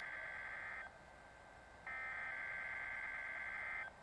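Emergency Alert System SAME header data bursts played by a NOAA Weather Radio receiver. A buzzy digital data tone cuts off about a second in and, after a one-second pause, sounds again for about two seconds: the coded header that opens an alert or test.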